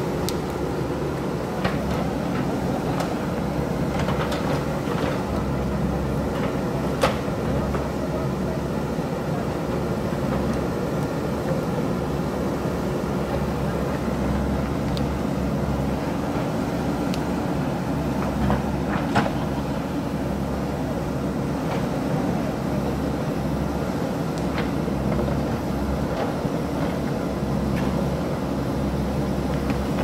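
JCB backhoe loader's diesel engine running steadily under digging load as the backhoe arm works. A few sharp knocks of the bucket and rocks are scattered through it.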